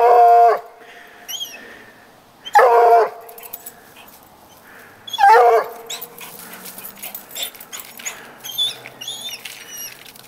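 Coonhound tree-baying at a treed cat: three loud, drawn-out bays of about half a second each, some two and a half seconds apart, in the first six seconds, then quieter rustling and clicks.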